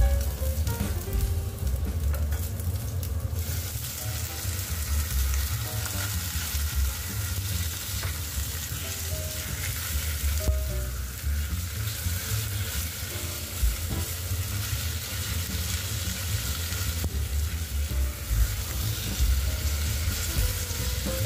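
Chicken pieces frying with garlic, ginger and dried chili in a pot, sizzling steadily as they are stirred and scraped with a silicone spatula. The sizzle grows brighter a few seconds in.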